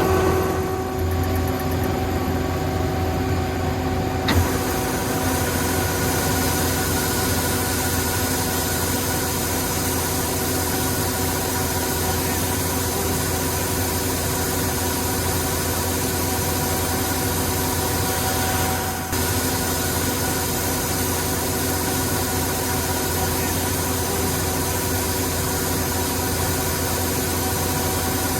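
Yanmar YH700M combine harvester's diesel engine running steadily, with a single short knock about four seconds in.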